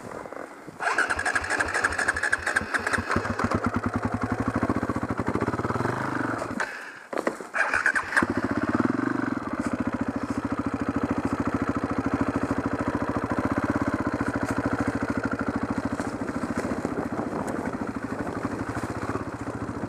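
Enduro dirt bike engine running at low revs with a steady, evenly pulsing firing note. It comes in about a second in, cuts out briefly around seven seconds in, picks up again and keeps running steadily.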